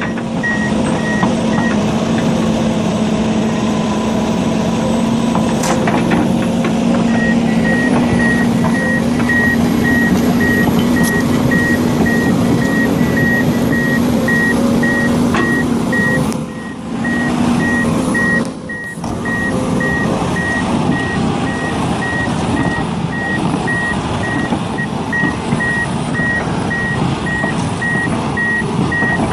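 A heavy machine's engine running steadily with a reversing alarm beeping in a quick, even pattern. The beeping stops for a few seconds shortly after the start, then comes back and keeps going.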